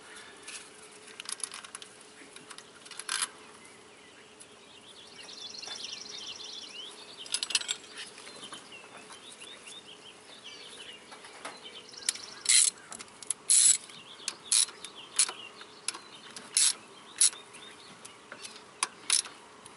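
Hand ratchet and tools clicking on metal as the pressure-hose fitting is tightened onto a power steering pump. A few clicks come early, then sharp clicks about once a second through the second half.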